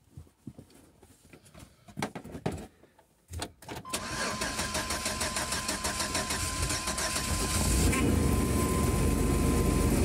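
1997 GMC Safari's 4.3-litre V6 cranking on the starter from about four seconds in, then catching and running about four seconds later. This is a cold start in freezing weather, the condition in which it used to crank without starting; the crankshaft position sensor and ignition coil have just been replaced. A steady high tone sounds during the cranking and stops near the end.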